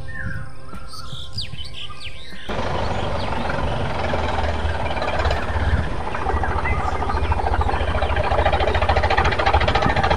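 Birds chirping over background music, cut off about two and a half seconds in by a steady, fast-pulsing rattling engine sound like a tractor engine running.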